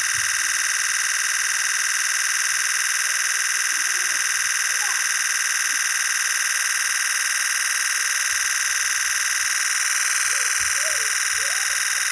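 Nikon Z 8's electronic-shutter release sound firing continuously in a high-speed burst while the shutter button is held, the frames running together into one steady, loud buzz.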